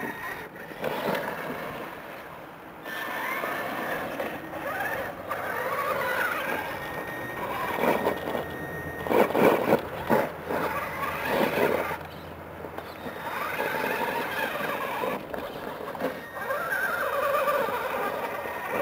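Traxxas E-Maxx electric RC monster truck's twin motors and geartrain whining in bursts, the pitch rising and falling with the throttle as it crawls up rock, its tires scrabbling on the stone. The loudest burst comes around nine to ten seconds in.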